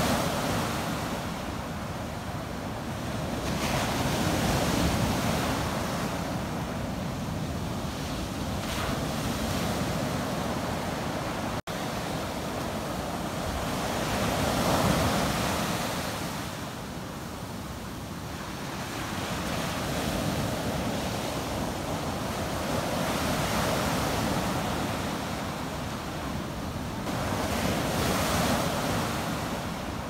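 Ocean surf breaking and foaming up a sandy beach, a steady wash that swells and ebbs with each incoming wave every several seconds.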